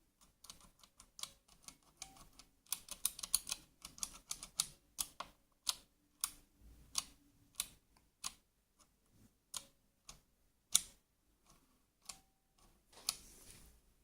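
Keys being pressed on a Redragon Manyu mechanical keyboard with Outemu switches: sharp separate clicks, a quick run of keystrokes about three seconds in, then slower, spaced single presses.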